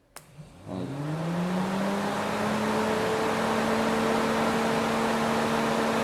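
Fiat Tipo's electric radiator cooling fan switched on with a click, its motor hum rising as it spins up and then holding steady over a rush of air. It runs without any rattle or scraping, its motor brushes and shaft freshly cleaned and lubricated.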